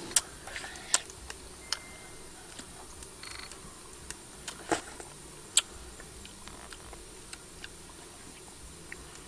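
Wet lip smacks and mouth clicks of people eating soft ripe fruit: a handful of sharp smacks spaced out over a faint steady hiss.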